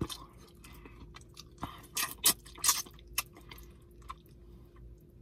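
Close-up chewing, lip-smacking and sucking of a person eating curry chicken off the bone by hand, a run of short wet clicks and smacks.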